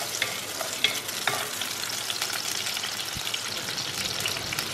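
Shallots and garlic cloves sizzling and crackling in hot oil in a clay pot while being stirred, with a few light taps of the spoon against the pot in the first second or so.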